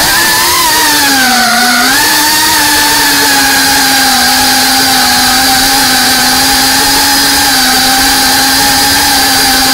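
FPV quadcopter's electric motors whining at a steady throttle, the pitch dipping briefly and climbing back about two seconds in, then holding nearly level.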